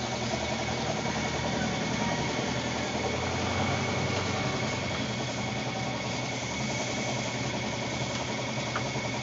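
Air compressor running steadily, a continuous even mechanical hum with a faint high steady whine.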